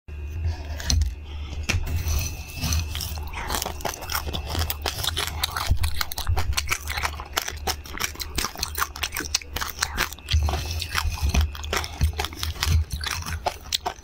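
Close-up crunching and chewing of a baked cake coated in raw rice grains and seeds, with the dry grains rustling and crackling; a dense, irregular stream of crisp clicks.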